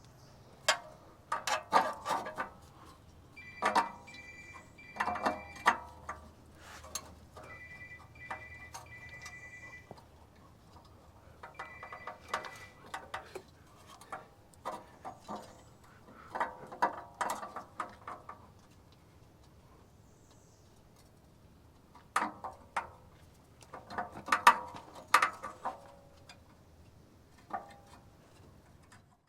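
Ratchet wrench clicking in short bursts with metallic clinks, tightening the bolts of an exhaust clamp over the rusted joint between the intermediate pipe and muffler.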